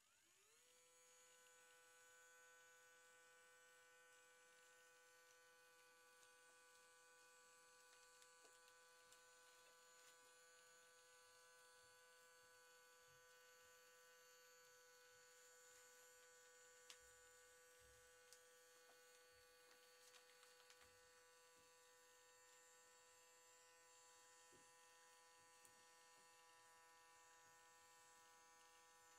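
Faint whine of a small electric motor, rising in pitch as it spins up at the start, then running at a steady pitch, with a few faint clicks.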